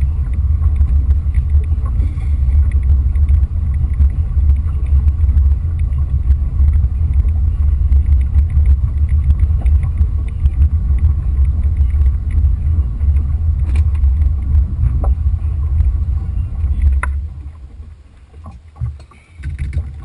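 Wind buffeting the microphone: a loud, gusty low rumble that dies away sharply near the end.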